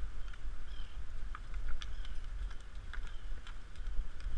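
Hooves of a group of Icelandic horses on wet sand, coming as scattered irregular clicks and thuds, over a steady low wind rumble on the microphone.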